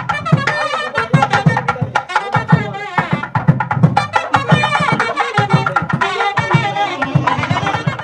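Music with a quick, busy drum beat and a wavering melody over it.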